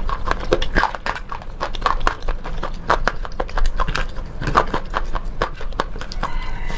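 Close-miked crunching of a slate pencil being bitten and chewed: an irregular run of sharp, crackly crunches, several a second.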